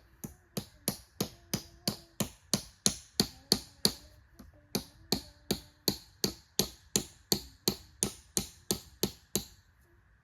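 Tent pegs being hammered into the ground: sharp, evenly spaced hammer blows, about three a second, with a brief pause about four seconds in.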